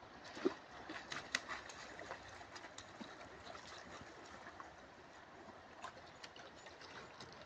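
A fish thrashing in shallow water and making a string of short splashes, most of them in the first few seconds and a few more near the end, over the steady rush of the river.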